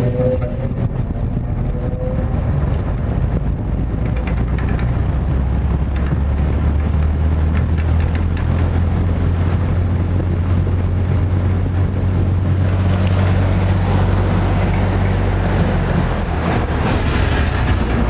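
Vintage AMC box fan running: a steady low motor hum under the rush of air from the spinning blades.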